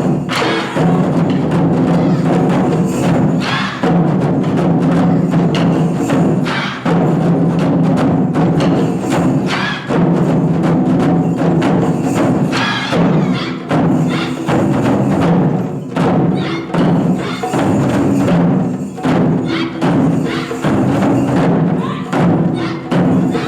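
Japanese taiko drums played by an ensemble in a fast, unbroken rhythm, with sharp clicking strikes over the deep drum tones.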